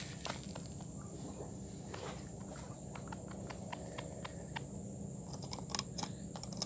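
Scattered light clicks and ticks over a faint steady background hiss, from a freshly hooked triggerfish and fishing line being swung in and grabbed by hand.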